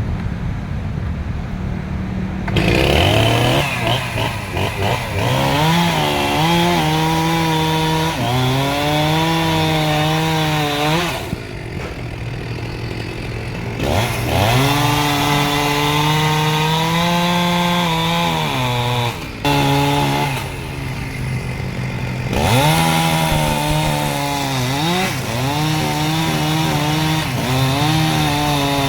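Chainsaw idling, then revving up a few seconds in and running at high speed while cutting wood, its pitch dipping and rising under load. It drops back to a lower speed twice and revs up again each time.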